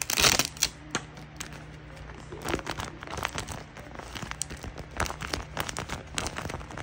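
Paper rustling and crinkling as tape-covered paper pieces are handled and slid against a paper envelope: a louder rustle right at the start, then scattered crinkles.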